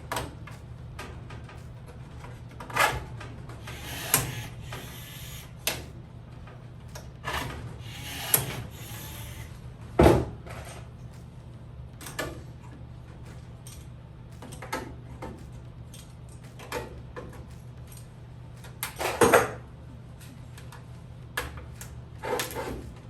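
Blind (pop) rivets being pulled into aluminium aircraft skin: a string of irregular sharp snaps and clicks as mandrels break and rivets and parts are handled, the loudest about ten seconds in and again a little before twenty seconds. A steady low hum runs underneath.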